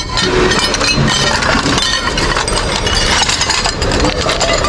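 Glass bowls and ceramic dishes clinking and knocking together, many short clinks in quick succession, as they are picked up and moved about in a heap of kitchenware.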